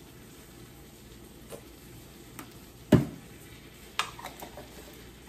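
Kitchen handling sounds during burger assembly: a loud thump about three seconds in, then a few sharp clicks about a second later, over a faint steady sizzle of food frying on the stove.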